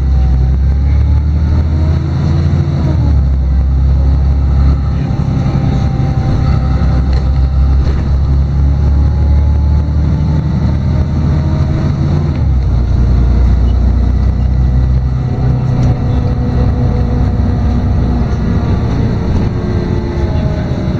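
LiAZ-6213.22 articulated city bus running in traffic, heard from inside the cabin: a steady low diesel drone, with whining tones that rise and fall as the bus speeds up and slows, and the drone shifting in level a few times.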